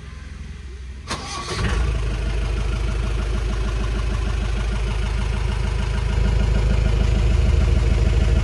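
2004 Mahindra Major jeep's diesel engine cranked on the starter and catching about a second and a half in, then idling steadily and running a little louder from about six seconds in.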